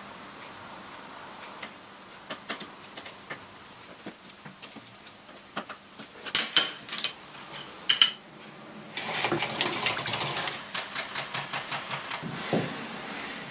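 Small metal-on-metal clinks and knocks from a cutting tool being fitted into a metal lathe's tool post. About nine seconds in there is a louder scraping rattle, then a run of quick even ticks.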